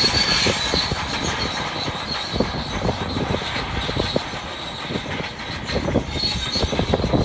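Crawler bulldozer working, its steel tracks squealing with a thin high note over a low engine rumble, with irregular metallic clanks and knocks throughout.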